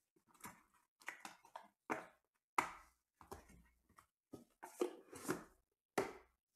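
Lid of a foam-lined cardboard card box being handled, pressed shut and set down on a tabletop: a series of irregular sharp knocks and taps, the loudest about two and a half seconds in.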